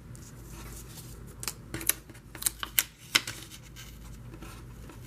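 Cardstock pieces being handled and set down on a work surface: paper rustling with a cluster of sharp taps and clicks from about one and a half to three seconds in.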